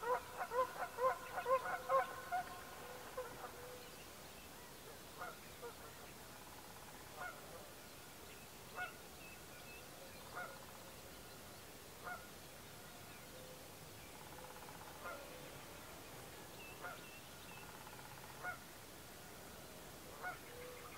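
Geese honking: a quick run of honks in the first couple of seconds, then single, fainter honks every second or two.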